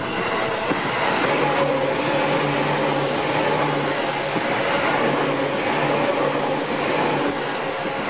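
Electric train passing close by at speed: a steady, loud running noise of wheels on rail with a faint low hum.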